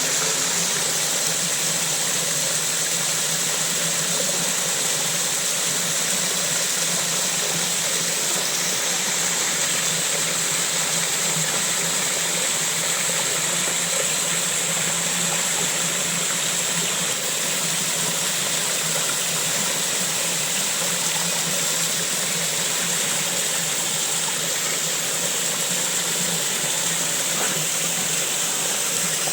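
Steady rush of running water, an even hissing noise that stays at one level throughout.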